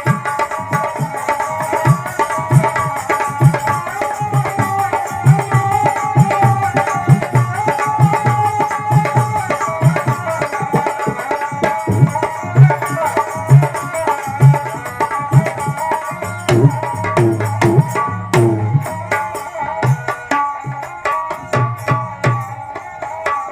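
Instrumental interlude of Rajasthani folk devotional music: a hand drum keeps a steady beat under a sustained melodic instrument line.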